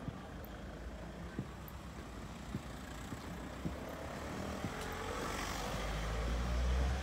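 A heavy truck's engine rumbles, growing louder toward the end. Light footsteps sound on paving about once a second.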